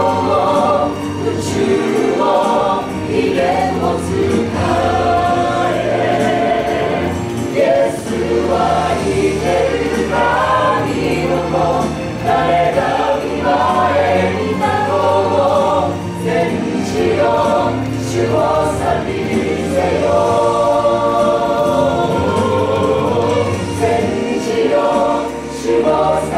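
Mixed-voice a cappella ensemble singing a Japanese worship song in harmony with no instruments, over a sustained low bass part.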